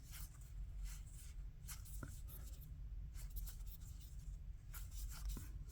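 Soft swishes and light ticks of Magic: The Gathering cards being slid and flipped one past another in the hands, irregular and faint, over a low steady hum.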